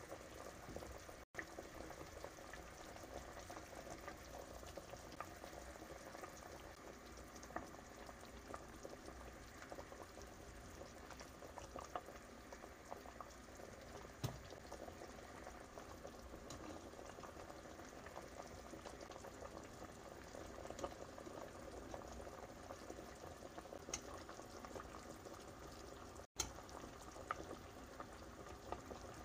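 Beef seaweed soup at a rolling boil in a stainless steel pot: steady, faint bubbling with scattered small pops.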